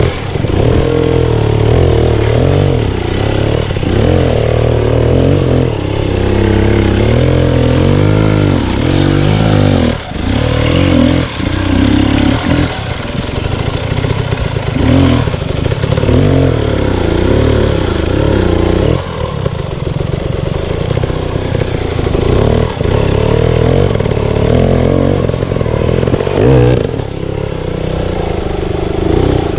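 2018 KTM 250 EXC two-stroke dirt bike engine revving hard in repeated bursts, the pitch climbing and dropping as the rider feathers the throttle to claw up a rocky step. A few short knocks and scrapes come from the bike on the rocks.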